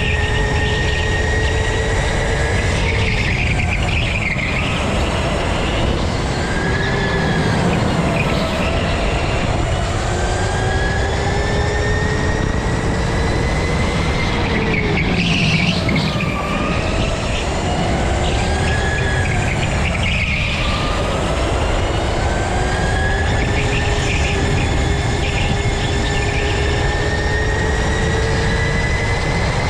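Go-kart motor whining from an onboard view, its pitch rising and dipping every few seconds as the kart speeds up and slows through the corners, over a steady rumble of tyres and wind. The driver calls the kart dead, down on power.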